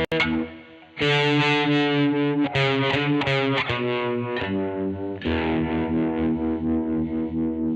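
Distorted electric guitar, a Fender Jazzmaster converted to a 'Jazzblaster', played through amp effects. A held chord cuts off just after the start; strummed chords follow with several quick changes between about two and four seconds in, then a long sustained chord from about five seconds on.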